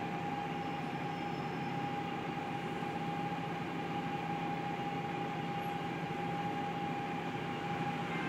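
Volvo B7TL double-decker bus idling with its three-speed Voith automatic gearbox, heard from inside the lower deck: a steady, noisy engine idle with a constant high whine over a low hum.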